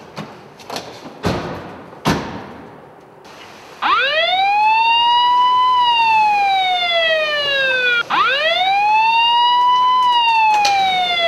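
A few sharp knocks in the first two seconds, then a police car siren starts about four seconds in, wailing loudly: each cycle rises quickly and falls slowly over about four seconds, twice.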